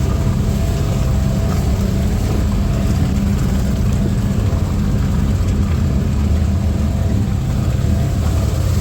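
Four-wheeler (ATV) engine running steadily while being ridden, a dense low rumble with no rises or drops in pitch.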